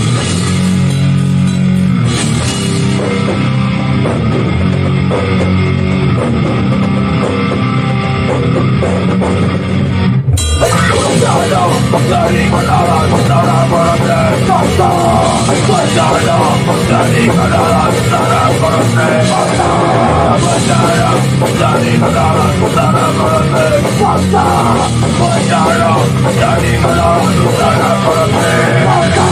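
A hardcore band playing at full volume in a rehearsal studio, with distorted guitars, bass and drums. Held heavy chords break off for an instant about ten seconds in, then the full band comes back in denser and fuller.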